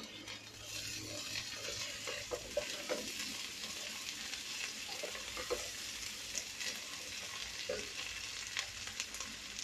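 Onion paste frying in hot oil with chopped onions in a pan, sizzling steadily, while a spoon stirs and scrapes against the pan with scattered knocks.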